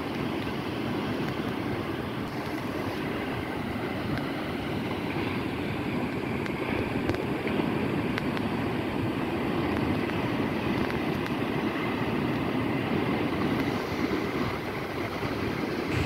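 Sea waves washing in: a steady, continuous wash of surf that swells slightly around the middle.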